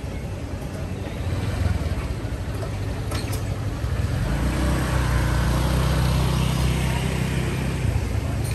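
A motor vehicle's engine running close by, a steady low-pitched sound that grows louder about halfway through and holds. A couple of sharp clicks come about three seconds in.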